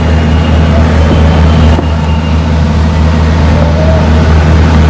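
Loud, steady low drone of a running engine, a deep unbroken hum with no change in pitch.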